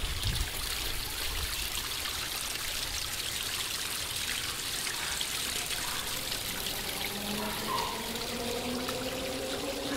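Water trickling and splashing steadily as a small pump-fed waterfall spills over stacked rocks into a garden pond.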